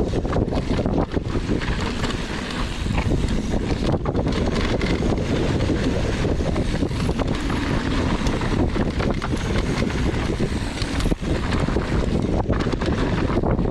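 Wind rushing over the microphone of a downhill mountain bike descending a rough trail, with the steady rattle and many small knocks of the bike over the terrain.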